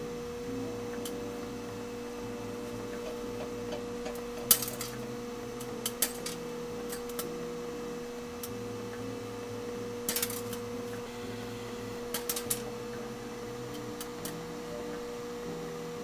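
Microwave oven running with a steady hum, while popcorn kernels inside give a few sharp pops: one about four seconds in, and small clusters past the middle and near the end.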